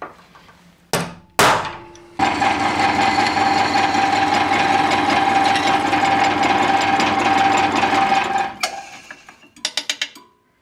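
Drill press running and drilling into the steel of an old file: a loud, steady machine sound with a strong high tone that lasts about six seconds. It follows two sharp metal knocks, the second ringing briefly, and a quick run of ticks comes near the end. The file steel has been softened by heat treatment, so it can now be drilled.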